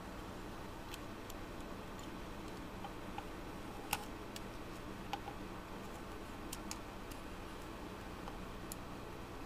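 Light, scattered clicks and taps of small plastic parts being handled: a gearbox housing and a small DC motor being fitted together by hand. The sharpest click comes about 4 s in, over a steady low hum.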